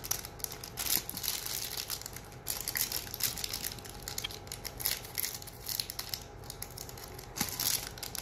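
Crinkly, glittery pink plastic toy wrappers being crumpled and torn open by hand, in irregular bursts of rustling, louder about a second in, around three seconds in and near the end.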